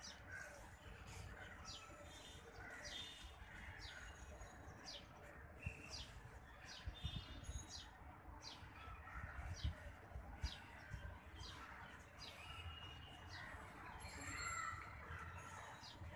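Small birds chirping, short high calls that drop in pitch, repeated about once or twice a second. Underneath, a low rumble with a few soft thumps.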